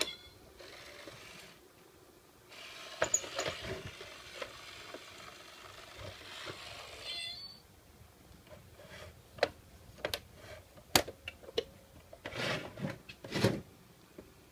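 A toy cat coin bank's small geared mechanism runs with a steady whir for about four seconds. After that come irregular knocks and scrapes as a cat paws at the bank's box.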